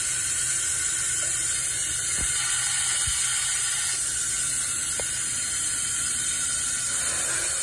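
Compressed air hissing steadily through a venturi-type cooling-system vacuum refill tool as it pulls a vacuum on the engine's cooling system ahead of the coolant refill.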